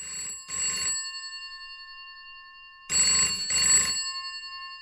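Rotary-dial desk telephone bell ringing in a double-ring pattern: two quick rings, then a pause of about two seconds, then two more. Each pair leaves the bell tones fading away afterwards.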